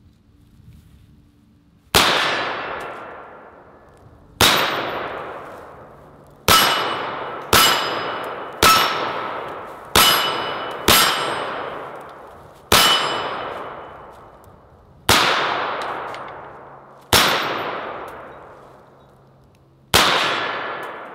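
Eleven semi-automatic shots from an M1 carbine (.30 Carbine), fired one at a time at uneven intervals of about one to two and a half seconds. Each is a sharp crack with a long, ringing, echoing tail.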